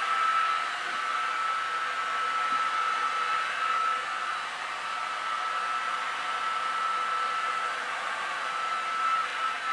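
Handheld hair dryer running steadily on high: a rush of blown air with a steady high whine from its motor.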